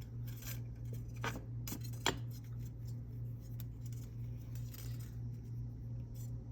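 Small clicks and ticks of thin jewelry wire being wrapped once around a wire frame and handled, four sharper ones in the first two seconds and fainter ones after, over a steady low hum.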